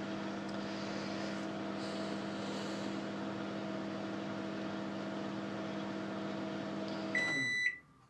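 LG microwave oven running with a steady hum while heating a glass of water. The hum stops about seven seconds in as the cycle ends, followed at once by a short high electronic beep, the end-of-cycle signal.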